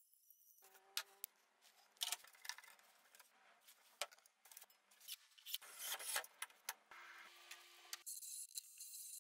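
Faint handling sounds of fitting a gas-strut lid support to a wooden storage bench: scattered small clicks and knocks of the metal strut and hardware against wood, with brief rubbing.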